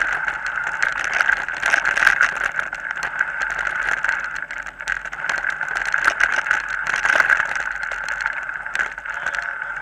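Mountain bike ridden along a bumpy dirt forest track: a continuous rattle and buzz with frequent short knocks as the bike and its mounted camera jolt over the ground.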